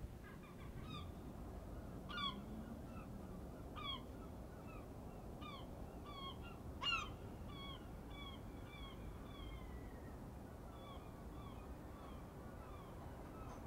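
Gulls calling over and over: short, down-slurred cries at about two a second, the loudest about seven seconds in, thinning out after about ten seconds. A low steady rumble runs underneath.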